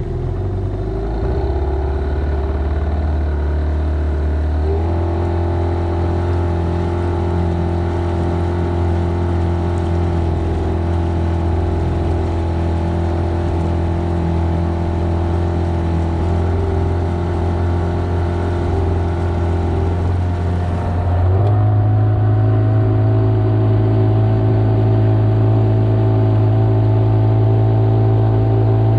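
A fishing boat's outboard motor running in forward gear as the boat gets under way. The engine's drone steps up in pitch and loudness as the throttle is opened, once about a second in, again about five seconds in, and most strongly about 21 seconds in.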